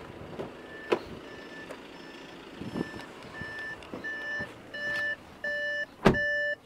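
Electronic warning beeps from the Audi A6's cabin, a steady tone repeating about every two-thirds of a second and getting louder and longer toward the end. A knock about a second in and a loud thump just after six seconds.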